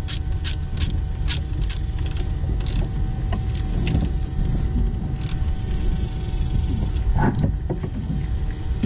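Ratchet wrench clicking about three times a second as a 10 mm nut is run down on the alternator's battery-cable terminal, the clicks thinning out after about three seconds. A steady low rumble runs underneath.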